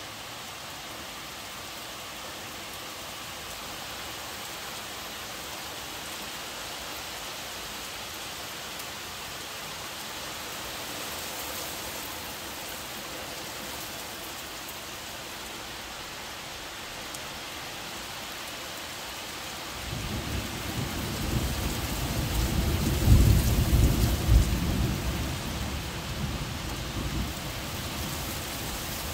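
Steady rain hiss, with a roll of thunder rumbling in about two-thirds of the way through, loudest a few seconds later and then dying away.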